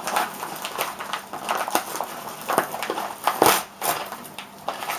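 Crinkling and rustling of the mailed package's wrapping as it is handled, in irregular crackles, with a louder knock about three and a half seconds in.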